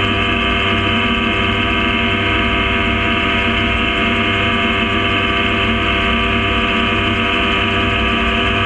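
Gyrocopter's engine and propeller running at a steady, unchanging speed, one continuous droning note.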